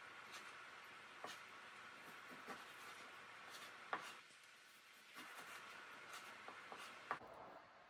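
Faint knife slicing through raw pork loin on a wooden cutting board, the blade rasping through the meat with soft taps on the board, two of them sharper, about four and seven seconds in.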